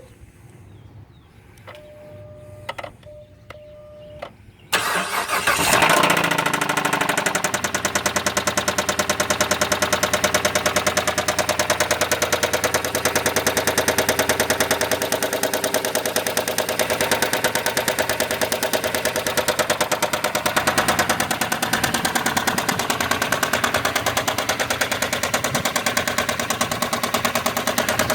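A few short electronic beeps, then the 2007 Chrysler Sebring's 2.7-litre V6 cranks and starts about five seconds in and settles to idle with a rapid, steady knock. The knock is what the owner fears is a lost cylinder; friends put it down to bad lifters.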